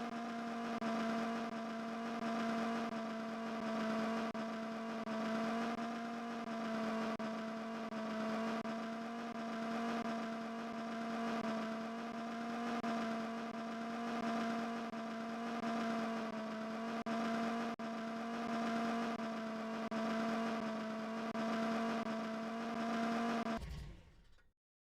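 A steady, pitched droning hum with overtones that swells and fades about once a second, then cuts off suddenly near the end.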